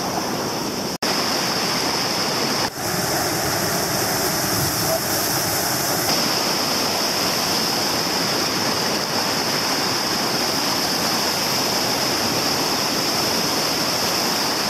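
River rapids rushing steadily: whitewater churning close by, with a brief dropout about a second in.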